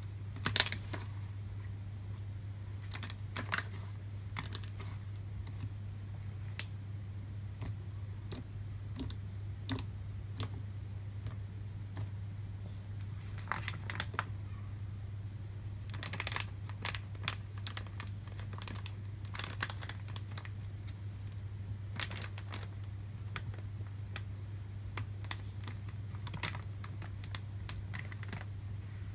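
Thick cream cheese slime (glue slime stiffened with cornstarch) being pressed and kneaded by hand, giving irregular small clicks and pops in scattered clusters, over a steady low hum.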